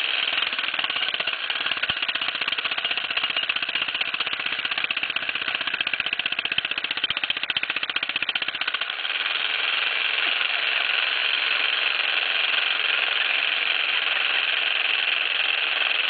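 Jackhammer running continuously with a rapid, even hammering. About halfway through the sound turns steadier and slightly louder, with less at the bottom.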